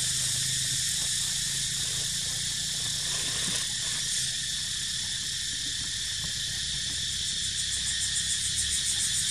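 A chorus of cicadas in the trees, droning steadily and high-pitched, taking on a pulsing rhythm in the last couple of seconds, with a low steady rumble underneath.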